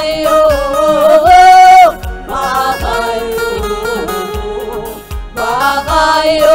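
Gospel choir singing a Tigrinya worship song (mezmur) into microphones, a woman's lead voice on top, over a steady drum beat.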